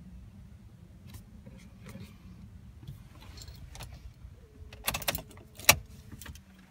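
Car keys jangling and clicking at the ignition of a 2005 Volvo V70 as the key is turned to switch the car off. The loudest clicks come about five seconds in, and the low steady hum under them cuts out near the end.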